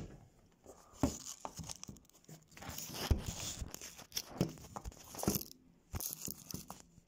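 Close handling noise from a hand gripping and moving a phone right at its microphone: scattered clicks and knocks with crinkling rustles in between.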